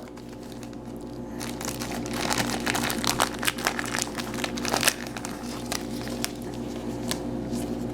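Plastic and foil trading-card packaging crinkling as it is handled, a dense crackle that thins out over the last few seconds.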